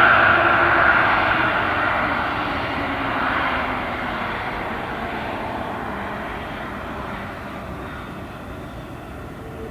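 Boeing 787-10 jet airliner on its takeoff climb-out, its engines loudest at the start and then fading with a falling pitch as it moves away.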